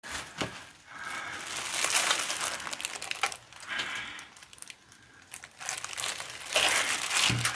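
Crinkling of clear plastic gloves as hands handle a large stainless-steel bowl, then thick white paste poured from a steel pot into it with a few light knocks of metal. Near the end the pot is tipped and shaken to empty it, which is the loudest part.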